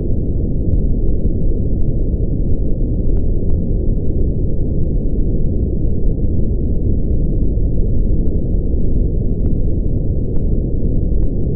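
Continuous brown noise: a steady, deep rumble of even noise, heaviest in the lowest bass and with no highs at all, unchanging throughout.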